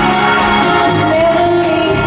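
Loud live band music with a steady beat, about two beats a second, and held notes.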